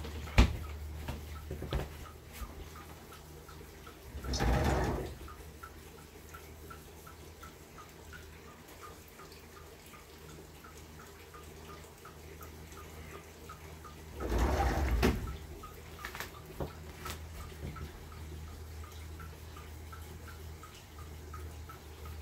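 Faint, regular ticking, about two ticks a second, over a steady low hum. A sharp click comes just after the start, and two short rushing noises come about 4 and 14 seconds in.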